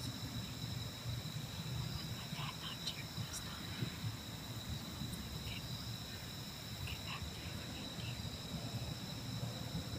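Woodland insects trilling in a steady, high-pitched chorus over a low rumble, with a few short chirps here and there.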